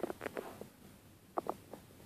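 A few soft knocks and taps, with two close together about one and a half seconds in.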